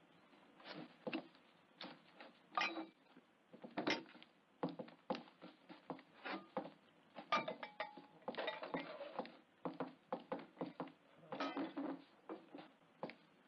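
Irregular clatter of tableware: knocks and clinks of dishes, cutlery and a pan, several of them ringing briefly.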